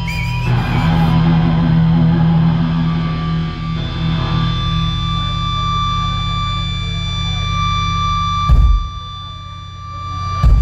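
Distorted electric guitar through an amplifier, left droning with held feedback tones rather than played in rhythm. Two loud, sudden thumps cut in near the end.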